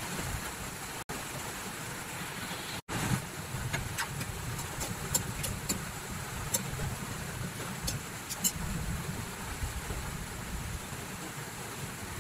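Steady low rumble of a stove burner under a wide pan of broth simmering with chicken and kamias, with scattered small ticks and pops. The sound cuts out for an instant twice, about one and three seconds in.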